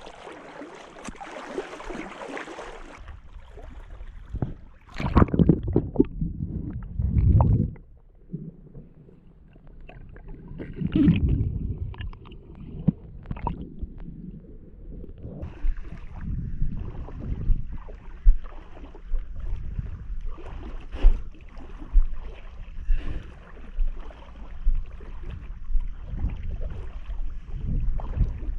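Water sloshing and splashing around someone wading through shallow tidal water, with gurgles, several heavier surges and many small knocks. The sound turns duller about halfway through.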